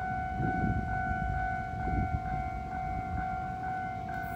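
Railway level crossing warning bell ringing steadily, its electronic tone repeating about twice a second, over a low rumble that swells in the first couple of seconds.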